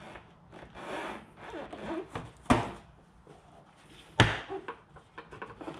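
Clips on the air filter housing lid being released by hand, with two sharp snaps about a second and a half apart and softer rattling and handling of the plastic housing between them.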